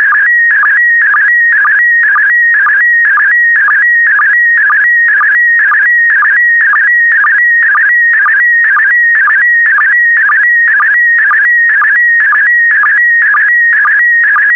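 Slow-scan TV signal in PD120 mode: a loud, high, warbling electronic tone chopped by a short sync blip about twice a second. Each beat carries a pair of picture lines as the image is sent.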